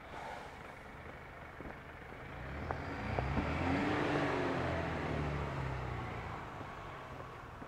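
A motor vehicle passing by, its engine and tyres growing louder for a couple of seconds, then fading away.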